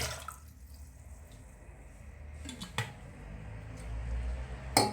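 Freshly squeezed orange and lemon juice being poured into a pot of cooled sugar syrup, a faint trickle of liquid. A sharp knock of the container near the end.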